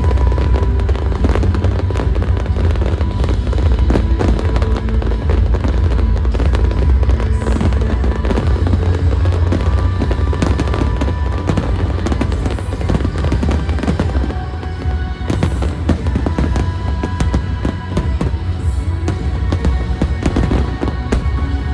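Fireworks going off in a dense, continuous barrage of bangs and crackles, over the show's loud music soundtrack.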